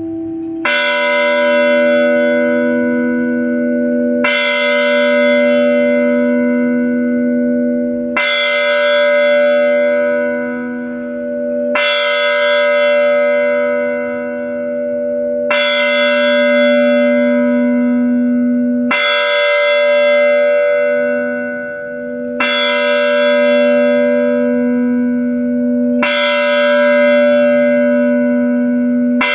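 A single church bell tolling slowly, struck about every three and a half seconds, each stroke ringing out and fading into a long low hum before the next.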